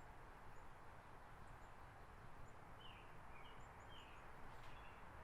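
Near silence: a low steady hiss with a few faint, short bird chirps, mostly about three to four seconds in.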